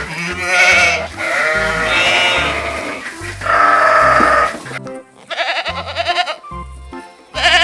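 A series of about five wavering bleats from goats or sheep, each lasting up to about a second, over background music with a steady beat.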